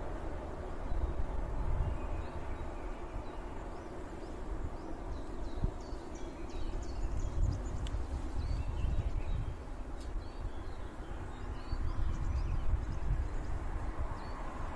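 Wind buffeting the microphone in uneven gusts, with small birds chirping faintly in the trees. The crossing's warning bell is silent.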